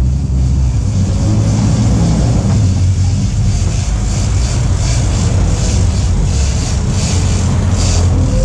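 Sportfishing boat's inboard engines running steadily with a deep hum, with water rushing and splashing around the stern.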